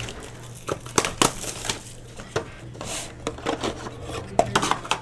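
Trading card pack wrappers crinkling and tearing as a box of card packs is being opened, with irregular sharp crackles.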